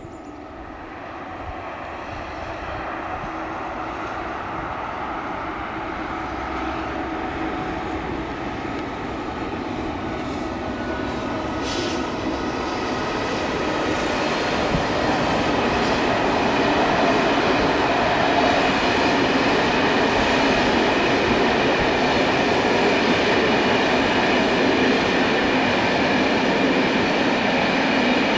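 Electric locomotive-hauled passenger train running past, its wheel-on-rail noise and a steady electric whine growing gradually louder as it approaches.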